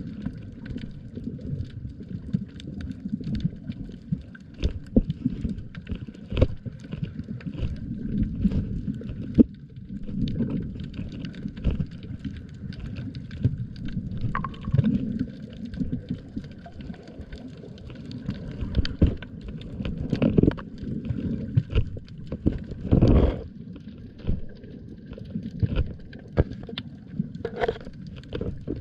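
Water and wind noise on a small boat: a low rumble with frequent irregular knocks and taps.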